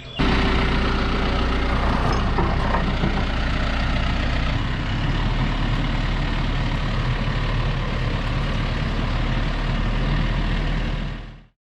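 An engine running steadily, with a low hum that drops slightly in pitch about four and a half seconds in; it fades out near the end.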